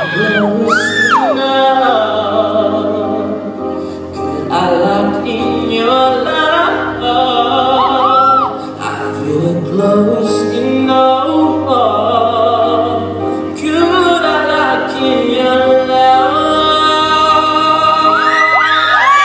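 Live pop music: a singer's wordless vocal runs and held, gliding high notes over a steady accompaniment.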